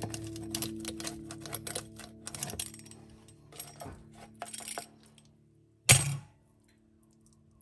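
Rapid, irregular crackling clicks of a pizza cutter wheel rolling through the crisp crust of a potato-and-egg omelette on a plastic cutting board, over soft sustained background music that fades out. About six seconds in comes one louder crunch as a cut slice is pulled away.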